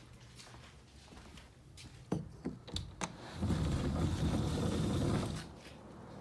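A door being opened: a few sharp clicks and knocks, then a low rumble for about two seconds that cuts off before the end.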